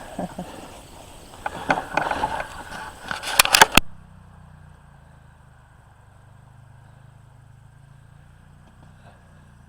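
Irregular rustling and clattering handling noise with a few sharp clicks, loudest just before it cuts off abruptly a little under four seconds in. After that there is only a faint, steady low hum.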